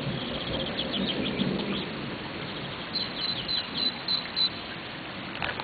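A songbird calling in runs of short, high chirps, about six evenly spaced notes in a row near the middle, over a steady hiss of rain during a thunderstorm. A low rumble of thunder dies away over the first couple of seconds.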